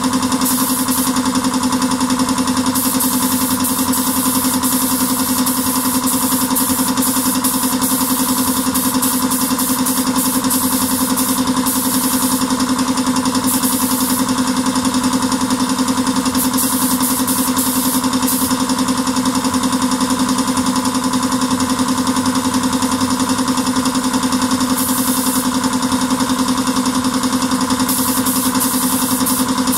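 Steady motor hum in a small spray booth, with short bursts of high air hiss from a spray gun several times.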